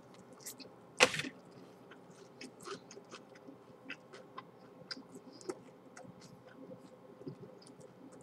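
A person chewing a bite of crispy fried chicken sandwich: faint, irregular wet mouth clicks and smacks, with one loud sharp sound about a second in.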